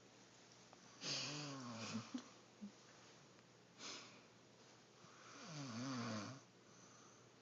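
A sleeping woman snoring: two snores with a wavering pitch, about a second in and again around five and a half seconds in, with a softer breath between them near four seconds.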